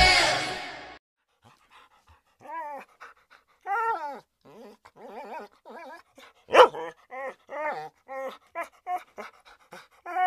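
A dog whining in a run of short, high, wavering whines, with one louder, sharper cry about six and a half seconds in. Dance music fades out in the first second.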